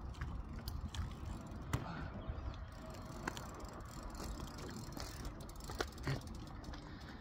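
BMX bike rolling over asphalt with a low rumble, the rear hub's freewheel ticking as it coasts, and a few sharp clicks scattered through.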